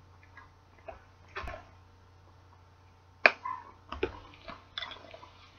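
Scattered clicks and light clatter of makeup tools and plastic cases being handled, put down and picked up. The sharpest click comes about three seconds in, followed by a run of smaller knocks.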